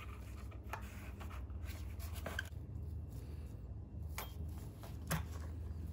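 Faint handling sounds: a few light clicks and rubs as a plastic trolling motor receptacle is test-fitted in a hole in a boat's switch panel, over a low steady hum.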